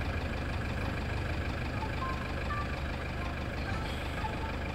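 Steady low rumble of a running vehicle engine, even throughout, with a couple of faint short tones about two seconds in.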